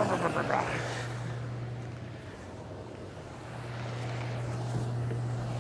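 Hot tub jets running: a steady low pump hum under the rush of churning, bubbling water. The water noise eases a little midway and swells again about three and a half seconds in.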